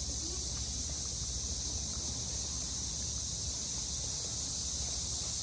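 A steady, unbroken high-pitched chorus of insects, most likely crickets.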